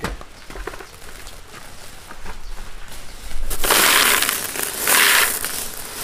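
Dry corn being handled: a loud, dry crunching rustle that starts about three and a half seconds in and comes in two long spells.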